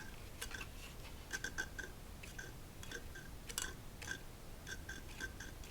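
Fan wheel of a portable car heater turned slowly by hand, giving a run of faint, irregular clicks, each with a short ring. Something inside is catching on the wheel, the cause of the heater's rattle.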